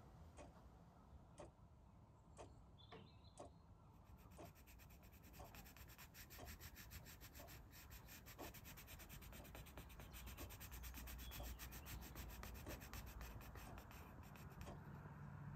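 Derwent Watercolour pencil shading on paper: faint, fast scratching of short back-and-forth strokes, starting about four seconds in. A faint steady tick about once a second runs underneath.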